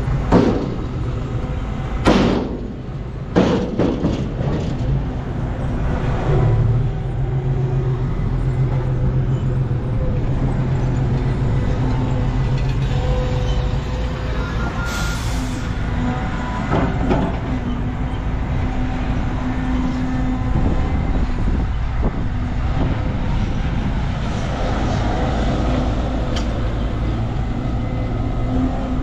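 Heavy diesel engine running steadily, with three loud bangs in the first four seconds and a short hiss about halfway through.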